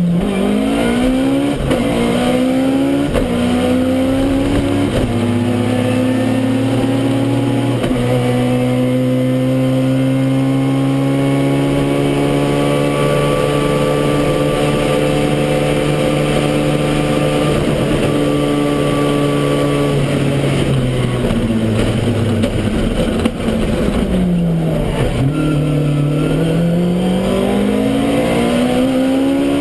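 Toyota Starlet KP61 rally car's engine heard from inside the car, revving up through quick gear changes in the first few seconds, then held high and steady for a long stretch. Past the two-thirds mark the revs drop sharply as the car slows, then climb again near the end.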